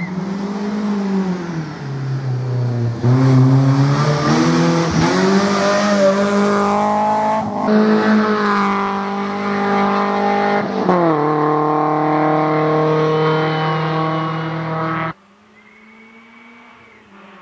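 BMW 318is rally car's engine revving hard as the car comes up close at racing speed. The pitch climbs and then drops three times as it shifts up. The sound cuts off suddenly near the end, leaving a faint distant engine.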